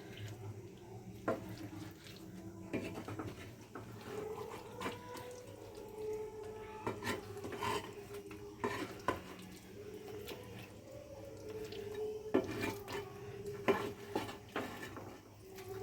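A spoon knocking and scraping against a cooking pan as a thick gravy is stirred, in irregular clinks.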